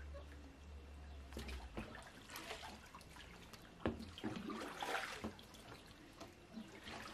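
Pool water sloshing and splashing against the hull of a Natseq modular kayak as it is rocked hard from side to side in a tipping test, with a sharp knock about four seconds in and a run of splashes just after. A low steady hum stops about a second and a half in.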